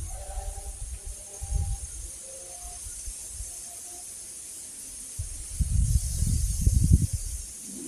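Steady high-pitched insect chorus outdoors, with low rumbling gusts of wind or handling on the microphone about a second and a half in and again, louder, from about five and a half seconds in.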